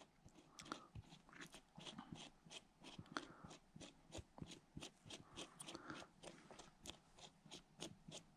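Faint, irregular clicking and ticking from the gears of a Daiwa Tatula CT baitcasting reel as they are turned by hand to work fresh grease into the teeth.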